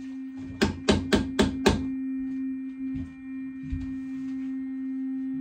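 Electric toothbrush running with a steady hum. Early in the hum come five sharp knocks in quick succession, about four a second.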